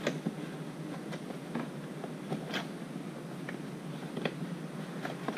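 Parts packaging being handled: scattered short rustles and light clicks of boxes and bags, the sharpest right at the start and about two and a half seconds in, over a steady background hiss.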